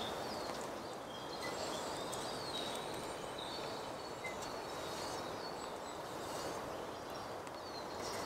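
Forest ambience: a steady rushing background hiss with small birds chirping several times, short thin high calls, and a few faint light clicks.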